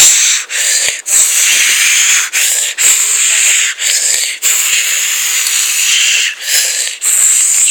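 Loud continuous hissing noise, cut by short breaks every half second or so.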